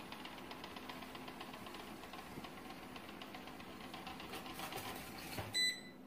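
Coredy robot vacuum running with a faint, fast whir as it settles onto its charging dock. About five and a half seconds in there is a small bump and a short electronic beep, and the motor stops: the robot has docked.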